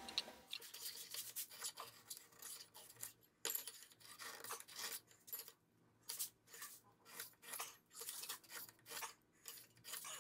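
Faint, quick scraping and rubbing strokes of a steel knife blank and small marking tools against a stone surface plate, many short strokes with brief pauses, as layout fluid is brushed on and layout lines are marked.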